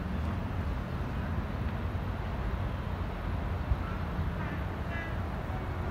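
Steady low outdoor rumble, without clear pitch or rhythm.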